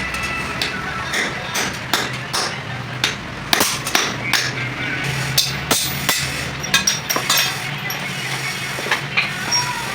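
Hammer tapping on metal in irregular sharp strikes, the hardest ones between about three and a half and seven and a half seconds in.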